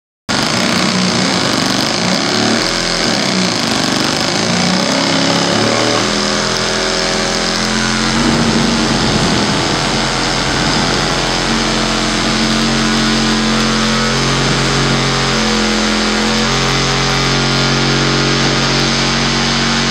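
Electronic feedback noise played live from a mixing desk through small guitar amplifiers: a loud, dense hiss and buzz with low tones that waver at first, then hold and change pitch in steps every second or two from about six seconds in.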